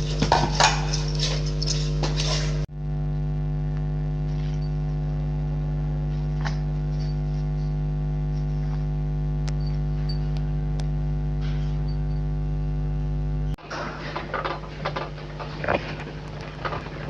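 Steady electrical hum of a mains-powered machine. About three seconds in it cuts to an unbroken hum, and near the end the hum drops and is joined by irregular scraping and small clicks.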